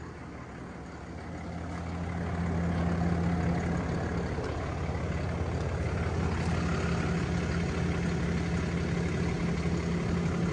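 Cummins 6.7 inline-six turbo-diesel in a Ram 5500 idling steadily with freshly changed oil; it grows louder about two seconds in, then holds.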